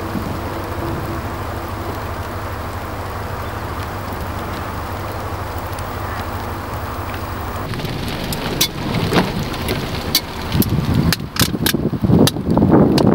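Thunderstorm gust front arriving: a steady rush of wind turns, about eight seconds in, into louder gusts buffeting the microphone, with scattered raindrops clicking on it.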